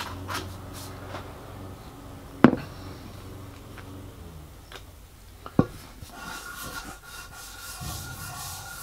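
A graphite-filled PTFE piston ring is rubbed by hand on 800-grit wet and dry paper over a flat plate, lapping it down to thickness: a soft, steady scrubbing. Two sharp knocks come about two and a half and five and a half seconds in.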